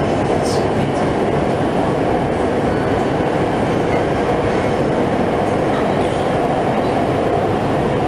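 Dalian Metro Line 1 train running at speed through a tunnel, heard from inside the car: a steady, even rumble of wheels on rails and tunnel noise.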